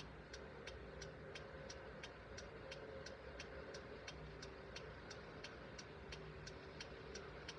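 Steady mechanical ticking, about three clicks a second, from the 1950 Jowett Javelin's turn-signal system, its flasher and clockwork timer switch working.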